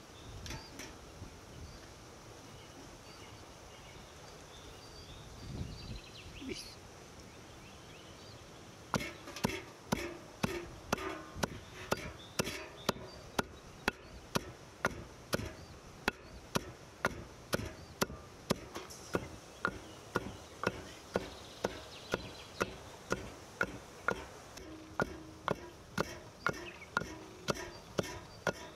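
Wooden pestle pounding pomegranate seeds in a big stone mortar: a steady rhythm of strikes, about two a second, starting about nine seconds in.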